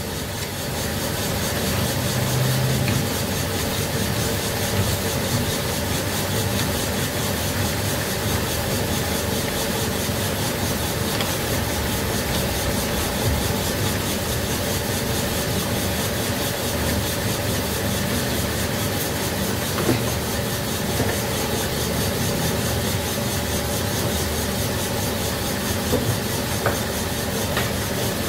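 Steady mechanical running noise from the connecting-rod bush boring machine, with a faint hum, while metal parts are rubbed and handled. A few light clicks come in the second half.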